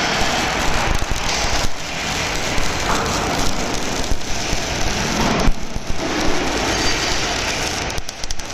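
Electric welding arc crackling and sizzling steadily as a welding carriage runs the torch along a seam, with a couple of brief dips in the crackle.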